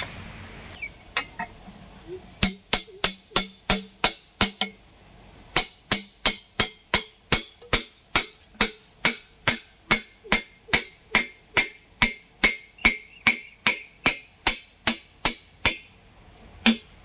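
Steady metal-on-metal tapping, about two to three strikes a second, each with a short metallic ring: a hammer driving a steel cylinder liner into a bore of a Volvo EC210B excavator's six-cylinder engine block. A few lighter clicks come first, and the tapping stops briefly about five seconds in.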